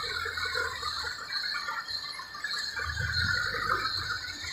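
JCB backhoe loader's diesel engine running as the front loader bucket is lifted, the engine and hydraulics working harder about three seconds in. A steady, busy high-pitched chatter runs underneath.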